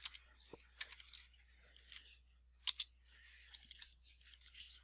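Computer keyboard typing: faint, irregular keystroke clicks, with a quick pair of louder keystrokes about two and a half seconds in.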